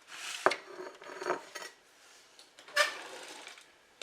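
Cutlery knocking and scraping against a dish. There is a sharp knock about half a second in and a louder scrape a little before the end.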